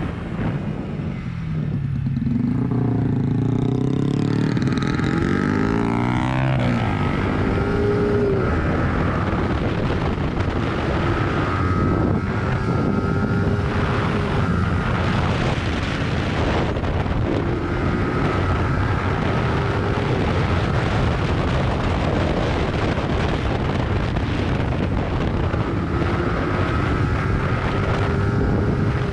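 Yamaha YZF-R15 single-cylinder engine pulling hard with its pitch climbing through the first several seconds, then running steadier with a few slow rises in pitch as it accelerates again. Wind rushes over the microphone throughout.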